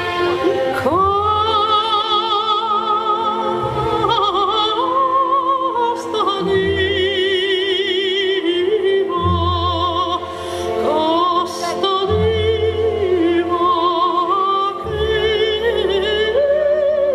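Orchestral music with a voice singing in operatic style, long held notes with wide vibrato over low bass notes.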